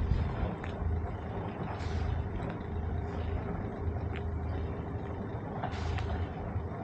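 Sailboat's engine running steadily while motoring, a constant low hum with hiss, broken by a few short knocks.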